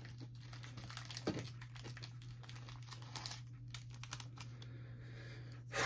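Thin plastic card sleeve crinkling and rustling with light, irregular ticks as a trading card is handled and slid into it.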